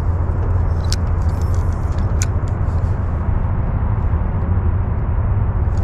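Steady low rumble, with a couple of light sharp clicks about one and two seconds in.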